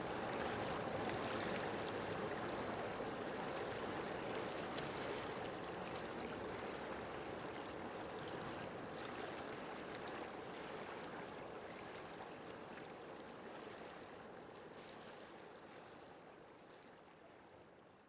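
Steady rush of running water that fades out over the last several seconds.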